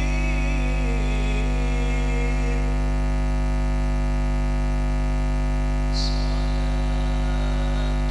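Loud, steady electrical mains hum from the hadroh group's microphone and sound system, a low buzz with a stack of even overtones. A sung vocal line trails away over the first two or three seconds, and a brief high chirp comes about six seconds in.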